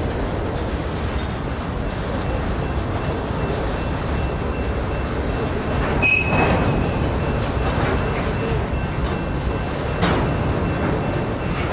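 Empty covered hopper cars of a grain train rolling slowly past: a steady rumble of wheels on rail, with a short high wheel squeal about six seconds in and a sharp clank about ten seconds in.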